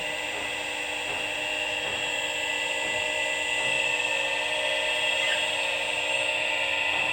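Electric motor running steadily on a frequency drive, a constant whir with several high held tones and a faint thin whine near the top.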